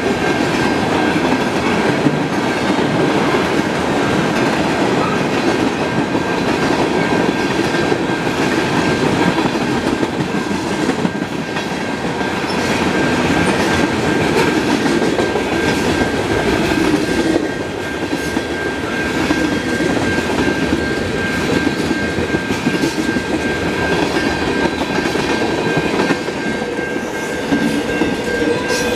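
Freight train cars (tank cars, covered hoppers and an autorack) rolling past on the rails: a steady heavy rumble with wheel clickety-clack over rail joints. A thin, steady high whine runs through it.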